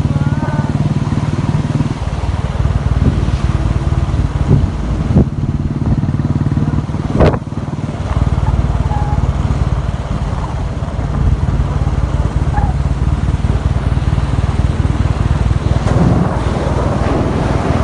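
Motorcycle riding along at road speed: a steady low engine hum under a dense low rumble, with one sharp knock about seven seconds in.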